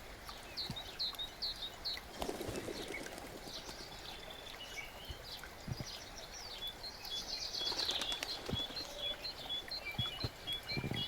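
Small songbirds chirping and trilling over a brook trickling and gurgling. In the second half one bird repeats a short high note, about two or three a second.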